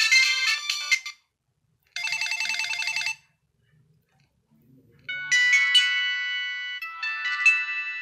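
Built-in ringtones of a Nokia 2608 flip phone previewed one after another through its loudspeaker: a tune cuts off about a second in, a second one plays for about a second, and after a gap of about two seconds a third ringtone of held notes starts.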